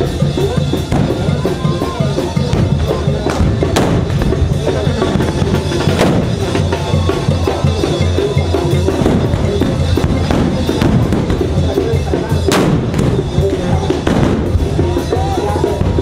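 Black-powder muskets fired with blank charges, several sharp shots a few seconds apart, over a band's drums and music and the noise of a crowd.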